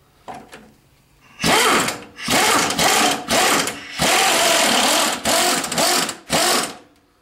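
A power wrench running a transmission mount bolt in, in several loud bursts of a few seconds each, after a couple of light clicks.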